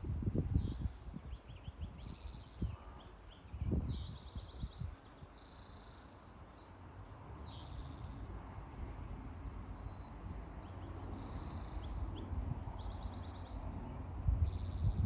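Songbirds singing short, high, repeated phrases over a steady background rush of water, with a few low rumbling thumps near the start, about four seconds in and near the end.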